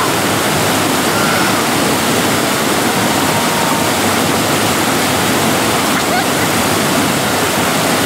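Loud, steady rush of a waterfall and its river pouring over boulders.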